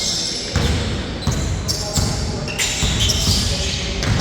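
A basketball bouncing on a hard court, about six dull thuds at a steady dribbling pace, with short high squeaks of sneakers on the floor mixed in.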